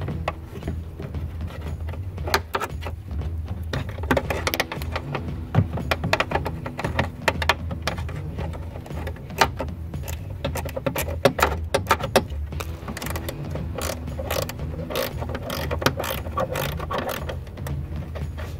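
Irregular metallic clicks and rattles of hand tools and fittings as the evaporative leak detection pump is worked on from under the car, some in quick ratchet-like runs, over a steady low hum.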